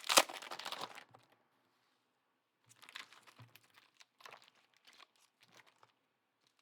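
Plastic trading-card pack wrappers crinkling and rustling as packs are handled and opened: a loud crackle in the first second, then scattered faint crackles a couple of seconds later.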